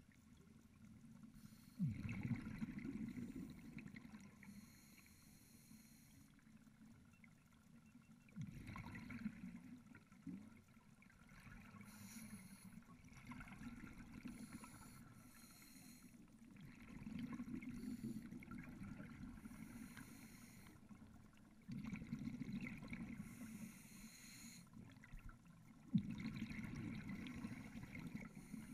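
Scuba regulator exhaust bubbles heard underwater through a GoPro housing: about five bursts of bubbling, several seconds apart, each starting suddenly and fading away, one per exhaled breath.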